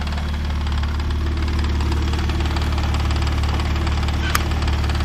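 Mazda K8 1.8-litre V6 idling steadily, with one short click about four seconds in.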